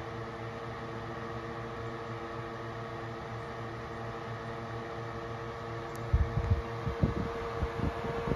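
Holmes HAWF-2021 twin window fan running on high, its two motors giving a steady white noise with a steady hum of several tones over it. About six seconds in, irregular gusts of wind start buffeting the microphone.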